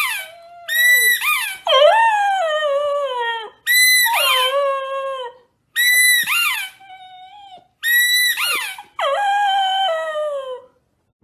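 Golden retriever puppy howling: about four howls in a row. Each opens on a high held note and then slides down into a lower wavering tone.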